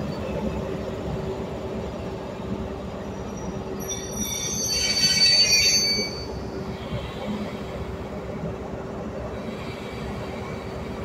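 Class 43 HST diesel power car running with a steady hum and rumble. About four seconds in, a high-pitched metallic wheel squeal starts and lasts about two seconds; it is the loudest sound.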